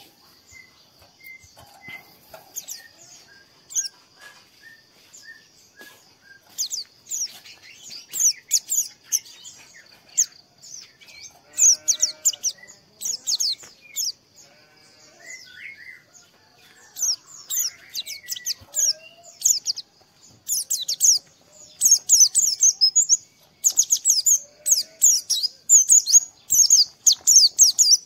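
White-eye (pleci) twittering: quick high chirps and trills that come thicker and louder through the second half, over a steady high insect-like drone.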